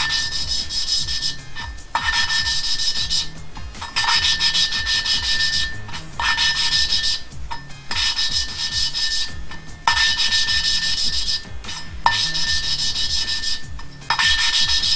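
A poppet valve being lapped into its seat in an MX-5 cylinder head with fine lapping paste, twisted back and forth by a hand-spun suction-cup lapping stick. It makes a gritty grinding sound in strokes about every two seconds, with brief pauses between. The grit is still audible, a sign that the paste is still cutting the seat.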